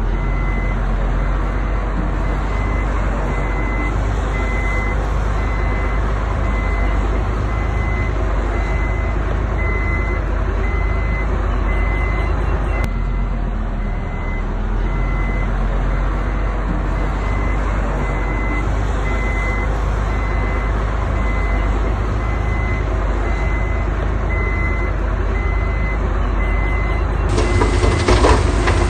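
Heavy construction machine's diesel engine running steadily, with its back-up alarm beeping about once a second as it reverses. Near the end the beeping stops and the engine sound changes abruptly.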